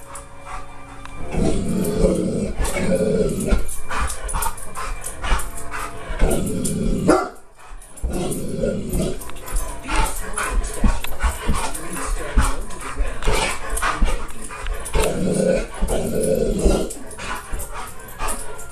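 A large dog barking in several bouts, excited by animals on a television.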